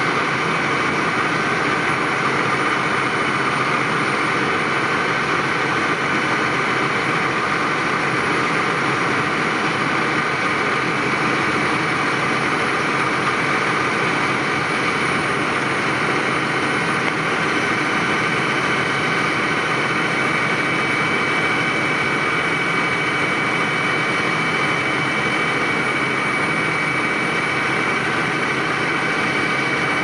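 A fire engine's engine running steadily, pumping water to the hose lines. It makes an unchanging engine drone with a thin steady whine above it.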